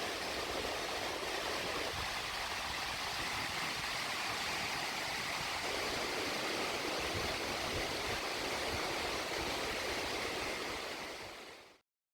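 Waterfall's rushing water, a steady hiss that fades out near the end.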